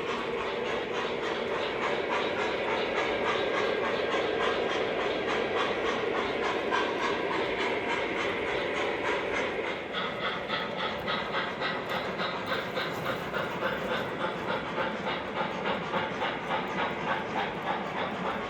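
O gauge model train running on the layout: wheels rolling and clicking on the track, with an even rhythmic beat of about two a second that grows more distinct in the second half.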